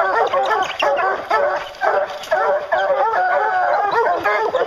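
A pack of bear hounds barking and baying together at the foot of a tree, many voices overlapping without a break: the tree bark of hounds that have a black bear treed.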